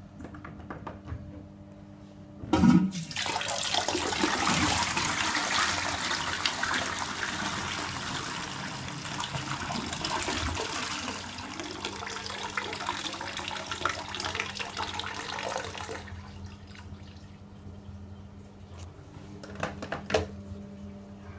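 Twyford Avalon toilet flushed by its lever: a sharp clunk, the loudest moment, then water rushing through the pan for about thirteen seconds and fading away. A few short knocks near the end.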